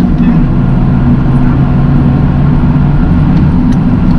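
Toyota GR Yaris's turbocharged 1.6-litre three-cylinder engine running while the car is driven, with road noise. Its pitch drops a little in the first second, then holds steady.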